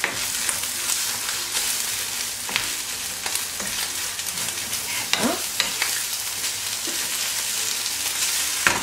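Tuna, onion and sweetcorn filling sizzling in a frying pan while a wooden spoon stirs and scrapes it around the pan, with a steady hiss and irregular scraping strokes.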